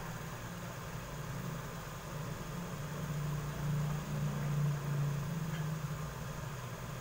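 A steady low mechanical hum, like an engine or motor running, that grows louder for a few seconds in the middle.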